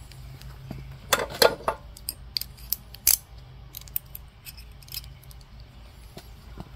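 Metal hand tools clinking and rattling as they are handled: a quick cluster of sharp clicks about a second in, a loud clink a little after three seconds, then scattered lighter taps.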